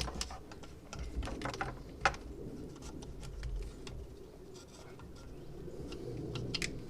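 Faint scattered clicks and taps of a plastic camshaft position sensor being handled and seated in a distributor, over a low steady murmur.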